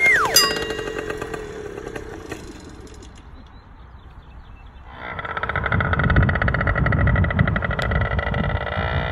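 Small single-cylinder engine of a Yamaha Tri-Zinger YT60 three-wheeler revving high and then dropping sharply in pitch, with a knock just after. It then runs low and quieter, and about five seconds in it comes back louder, running steadily with a fast, even putter.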